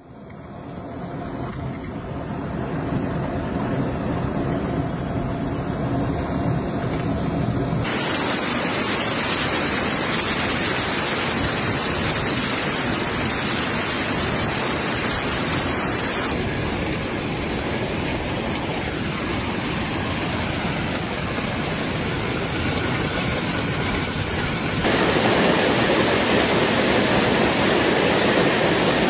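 A heavy hailstorm with rain, hailstones pelting down on the ground, vehicles, water and a deck in a dense, steady rush of noise. The sound changes abruptly about every eight seconds and grows louder near the end.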